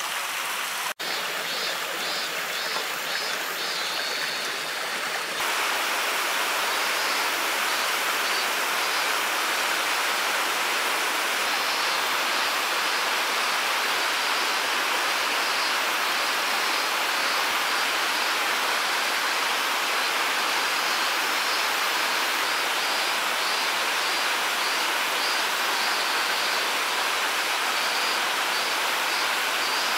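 Steady rush of flowing water from a small waterfall or garden water channel, growing a little louder about five seconds in.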